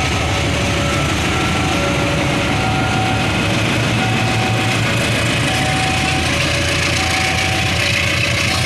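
KAI CC 206 diesel-electric locomotive running steadily as it passes close by hauling passenger coaches. Over it, a two-tone warning signal alternates about once a second, typical of a level-crossing alarm.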